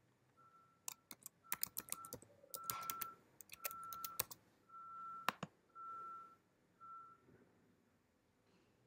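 Computer keyboard keys typed in a quick, uneven run of clicks as a password is entered; the clicks stop a little over five seconds in. Behind them a faint high beep pulses about once a second and fades out near the end.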